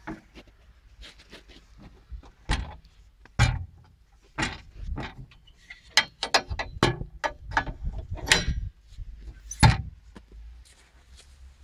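Irregular metallic clicks, clanks and knocks from a mini excavator's engine cover and its spring-loaded metal latch being worked by hand, with a heavier thump near the end as the panel is pushed shut.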